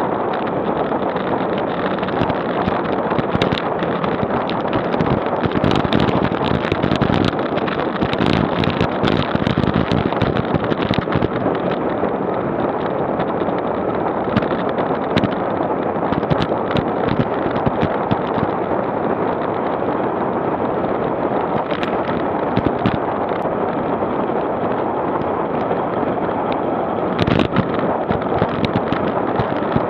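Wind buffeting the microphone of an action camera on a bicycle riding downhill at about 25–30 km/h, a steady rush with many sharp knocks and clicks mixed in, thickest in the first half and again near the end.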